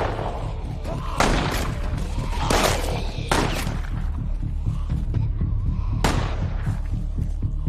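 Four gunshots, spaced irregularly, each with a ringing echo tail, over steady low drone music.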